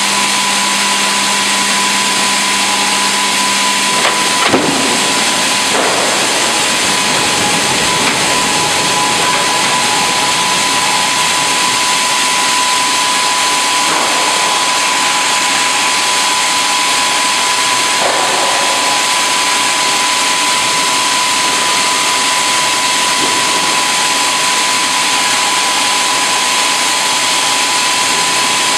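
Sawmill band-saw line running: the hydraulic vertical band saw and its conveyor and roller drives make a loud, steady machine noise with a constant high whine. A low hum drops out about four seconds in, around the time of a couple of light knocks.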